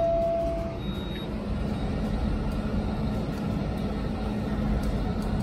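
Semi-truck diesel engine idling with a steady low rumble, opening with a single electronic beep just under a second long.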